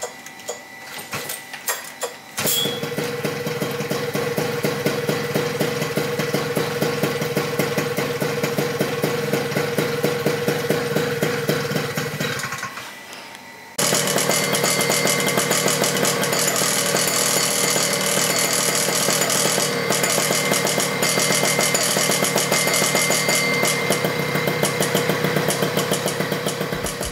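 Vittorazi Atom 80 two-stroke paramotor engine, started on the ground: a few sharp clicks, then it starts about two and a half seconds in and runs with a fast, even pulsing. It dies away about twelve seconds in, then comes back abruptly and louder about a second later and keeps running.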